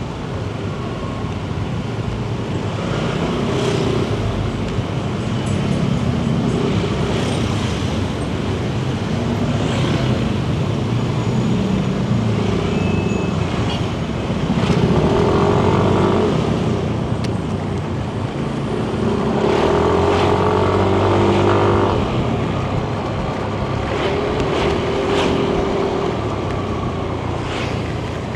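Yamaha Nmax 155 scooter's single-cylinder engine running while it is ridden, its note swelling louder under throttle about halfway through and again a few seconds later, over wind and road noise.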